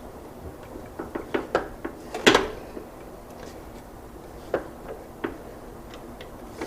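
Clicks and clunks of a Hercules miter saw stand's adjustable parts being moved and locked in place: a quick run of light clicks about a second in, a louder clunk a little after two seconds, then two more single knocks.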